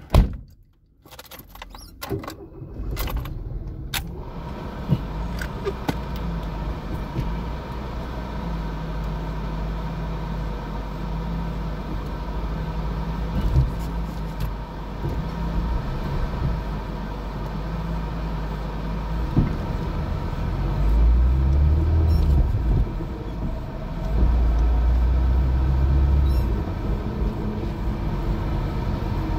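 Alfa Romeo 75 engine, heard from inside the cabin, started about two seconds in after a sharp knock at the start, then running steadily as the car drives off. It grows louder twice near the end as the car accelerates.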